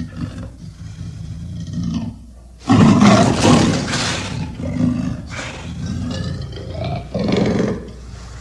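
Leopard and wolf vocalisations mixed into one animal call: low growling, a loud roar about three seconds in lasting a couple of seconds, and a second, shorter roar near the end.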